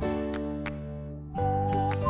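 Light background music with acoustic guitar: a chord rings and fades, and a new chord comes in with a held melody note a little past halfway.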